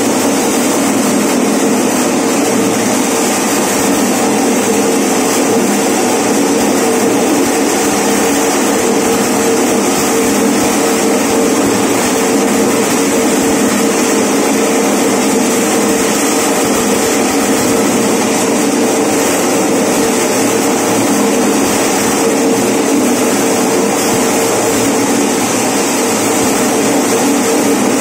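Electric mini maize sheller, driven by a 1.5 HP single-phase motor, running steadily at speed as corn cobs are fed through its rollers to strip the kernels.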